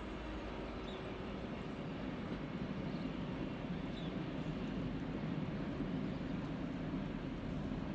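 A train hauled by a RENFE class 269 electric locomotive running, a steady rumble that grows a little louder after about two seconds.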